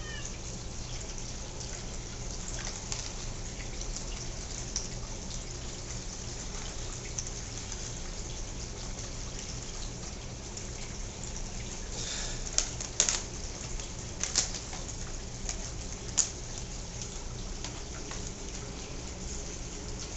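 Steady hiss with a faint low hum, and a few sharp clicks and taps about two-thirds of the way through.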